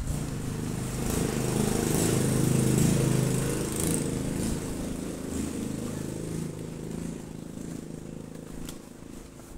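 Motorcycle engine running, swelling to its loudest about two to three seconds in and then slowly fading, as a bike passing by would.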